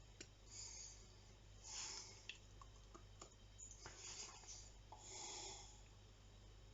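Near silence with faint breathing close to the microphone, a soft breath about every three seconds, and a few tiny clicks of a small object being handled.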